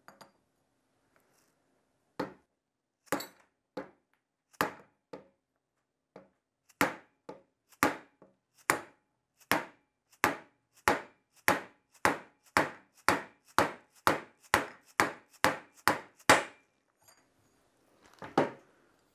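Hammer taps on a steel pipe driver, seating a new roller bearing onto a Porsche 915 transaxle pinion shaft. A few spaced taps are followed by a steady run of about two a second, with one last tap near the end.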